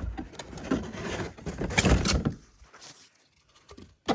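Rustling and knocking as packaging is handled and rummaged through, loudest about two seconds in. It then goes quiet, and there is a single sharp knock near the end.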